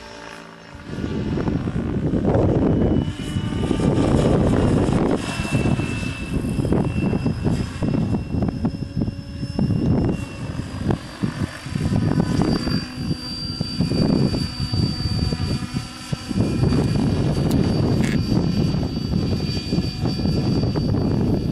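Diabolo 700 RC helicopter flying, its rotor blades whooshing in swells as it passes, with a thin high whine that steps up in pitch partway through. It gets loud about a second in.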